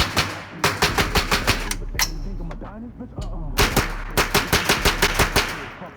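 Gunfire: a shot, then a rapid string of about nine shots in just over a second, and after a pause a second rapid string of about ten shots, magazines being emptied in fast succession.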